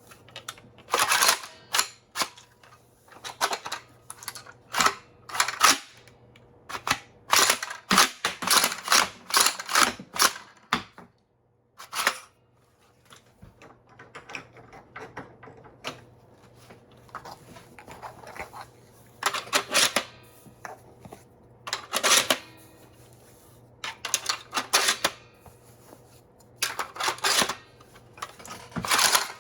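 3D-printed shell-ejecting Nerf shotgun being worked by hand: quick clusters of sharp plastic clacks and snaps, about nine bursts with pauses between, as the action is cycled and shells are extracted and ejected.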